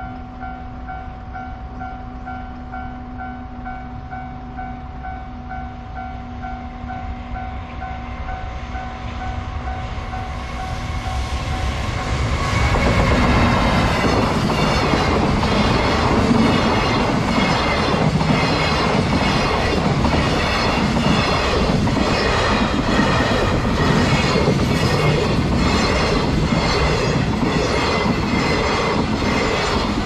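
Level-crossing warning bell ringing in a steady repeating pulse as a freight train approaches. About 12 seconds in, the JR Freight EF210 electric locomotive and its long string of container wagons pass close by, loud, with a regular clickety-clack of wheels over the rail joints that drowns out the bell until near the end.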